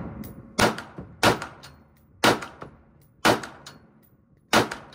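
AR-15 rifle with a 16-inch 5.56 upper firing five semi-automatic single shots, spaced irregularly about a second apart, each with a short fading echo.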